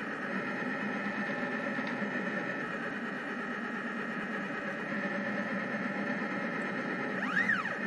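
Rostock delta 3D printer at work, its stepper motors giving a steady whir and hum as the print head moves. Near the end, one quick move makes a whine that rises and then falls in pitch as the motors speed up and slow down.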